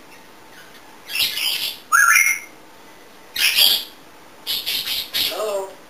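African grey parrot making a series of squawks and calls: two rasping, hissy squawks, a short rising whistle about two seconds in, and a lower, warbling call near the end.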